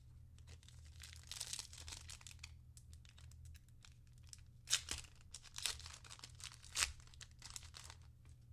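Trading card pack wrapper being torn open and crinkled by hand: a run of crinkling, then two sharp crackles about five and seven seconds in.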